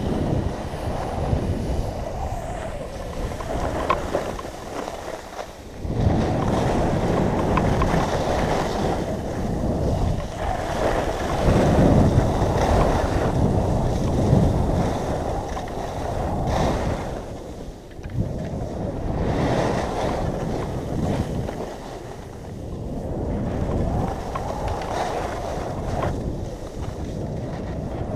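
Wind rushing over the microphone of a skier's camera on a downhill run, swelling and easing in surges with speed, mixed with the hiss of skis sliding on the snow.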